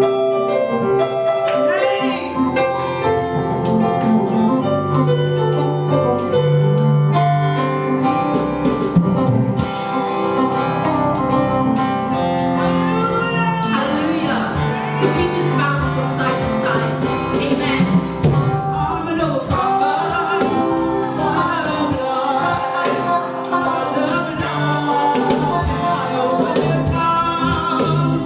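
Live gospel worship music: a band playing with a steady beat while voices sing, recorded on a camera's own microphone, slightly crackly.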